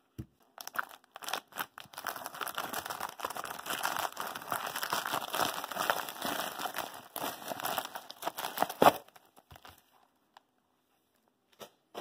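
White plastic mailer envelope being handled and opened, crinkling and tearing in a dense crackling run for about eight seconds. A sharper crack comes about nine seconds in, followed by a few light clicks and taps.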